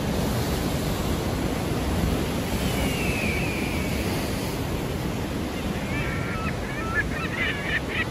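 Ocean surf washing steadily, a continuous rushing noise. A short, falling high call comes about three seconds in, and a run of short high chirps near the end.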